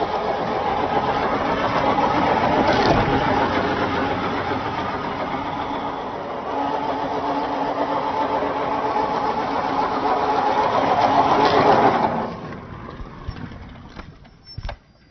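Electric motor and geared drivetrain of a Traxxas TRX-4 RC crawler whining under throttle, its pitch wavering and rising near the end before it cuts off about twelve seconds in. A few light clicks and knocks follow.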